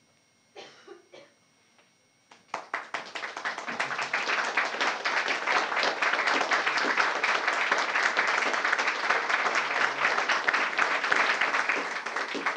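Audience applauding in a small hall: the clapping starts suddenly about two seconds in, swells quickly and then holds steady.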